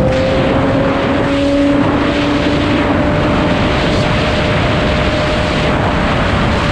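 Sportbike engine held at high revs while riding at speed, its pitch rising slowly, under a heavy rush of wind noise.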